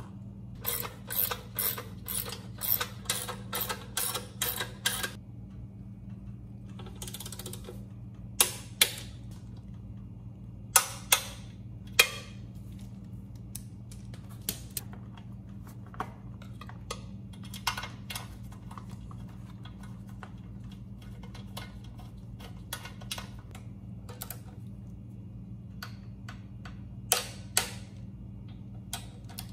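Ratchet wrench clicking in quick runs as bolts holding the starter fan shroud on a Briggs & Stratton engine are turned, with a few louder sharp metal clicks between the runs. A steady low hum sits underneath.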